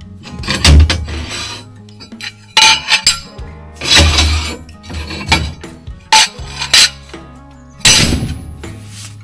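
Irregular metal clanks and clinks, some with a brief scrape, struck hard and ringing. Background music plays underneath.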